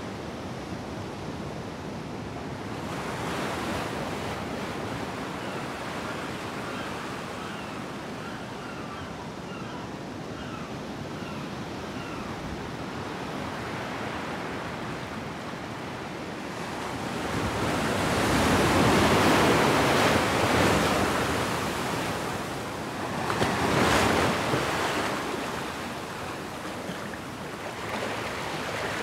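Sea waves washing onto a sandy beach, a steady rush of surf that swells louder twice in the second half as bigger waves break.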